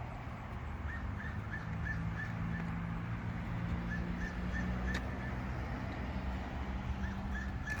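Bird calls: three runs of short, high chirps, about three a second, over a steady low hum.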